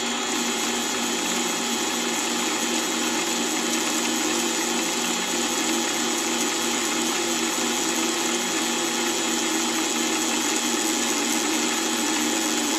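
Mini-lathe running steadily: its motor and gear train give a constant whine with a few fixed tones over an even mechanical noise as the spindle turns a brass workpiece against a 0.5 mm drill bit.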